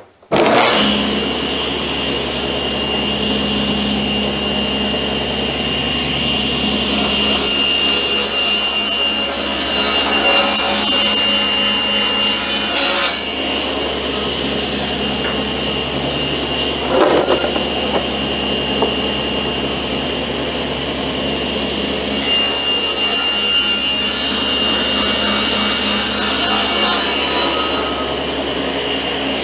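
Table saw switched on and running steadily, its blade trimming a thin strip off the edge of a plywood crosscut sled as the sled is pushed through. The trim cut is to check the sled's fence for square. The sound grows louder for a few seconds about eight seconds in and again past twenty seconds, with a short knock in between.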